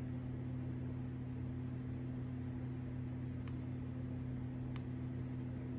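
A steady low hum, with two faint clicks a little past halfway, about a second apart.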